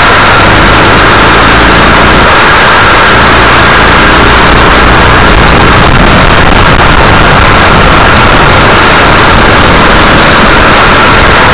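Racing kart engine running hard and continuously, heard from onboard the kart, so loud that the recording is clipped and distorted throughout.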